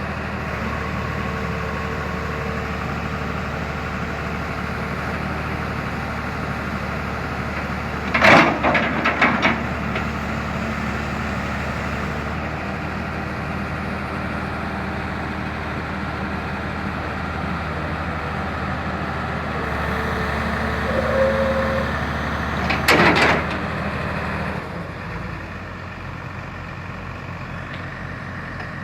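Excavator engine running steadily, with two short loud clusters of knocks, one about eight seconds in and one about twenty-three seconds in. The engine grows louder around twenty seconds and settles lower near twenty-five seconds.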